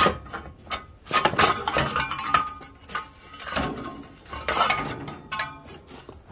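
Loose rusty metal parts clanking and clinking against each other as they are shifted by hand in a junk pile; a few knocks ring briefly.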